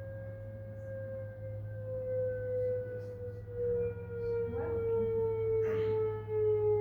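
A tone from a loudspeaker driving a Rubens' tube, set from a tone generator, gliding slowly and steadily down in pitch as the frequency is turned down from about 539 Hz. A low steady hum sits underneath.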